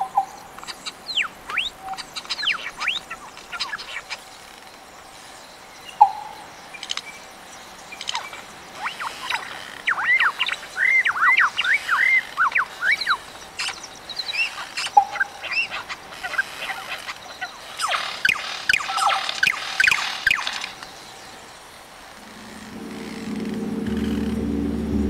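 Birds chirping in quick runs of sweeping high notes over a steady background hiss, busiest in two spells in the middle. Near the end a low sustained drone fades in.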